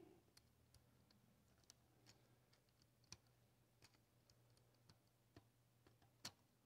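Near silence with faint, irregular small clicks of pliers working a wrapped wire lead loose from a terminal on a vacuum-tube television chassis, the sharpest about three seconds in and near the end, over a faint low hum.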